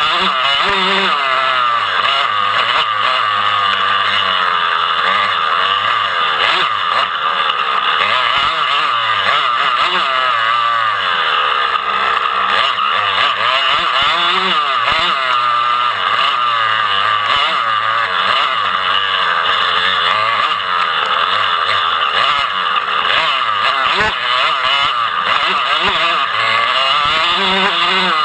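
Several dirt bike engines revving up and down at once, their pitches rising and falling constantly and crossing over one another.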